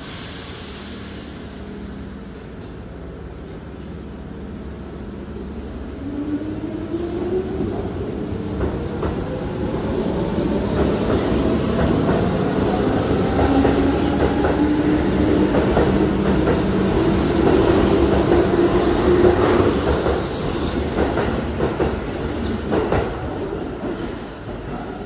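Keihan 1000 series electric train pulling out of the station, opening with a brief hiss. Its motor whine then rises steadily in pitch as it gathers speed, over a rumble and clatter of wheels on the rails. The sound grows loudest as the cars pass close by, then falls away near the end.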